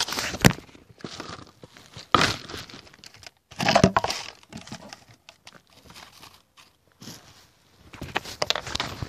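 Handling noise: the recording device rubbing and knocking against cloth, heard as irregular bursts of rustling and crinkling with sharp clicks, loudest around two and four seconds in.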